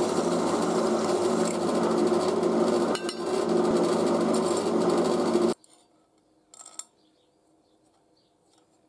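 An electric motor-driven machine running steadily with a buzzing hum and hiss, which cuts off abruptly about five and a half seconds in. A brief rustle follows about a second later.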